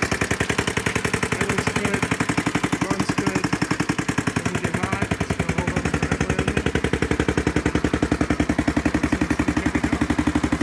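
A 1983 Honda Big Red ATC 200E three-wheeler's single-cylinder four-stroke engine idling steadily with a rapid, even chugging. The engine has been revived after long storage and now runs decently.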